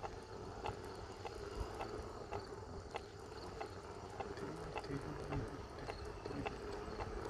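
Siberian husky's paws clicking on the ground in a steady trot, about three clicks a second, over a steady low hum from the electric unicycle ride.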